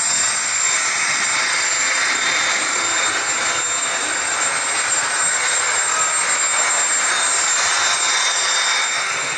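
Sound-equipped HO-scale RTG gas-turbine train models in multiple unit, their onboard sound systems playing a steady simulated traction-turbine rush with a thin high whistle on top as the trains run at speed.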